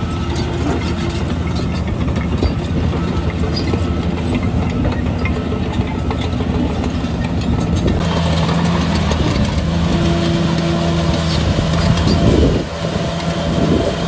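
Heavy earthmoving machine's diesel engine running steadily under load. About halfway through it grows louder and rougher, and near the end its note sweeps and briefly drops.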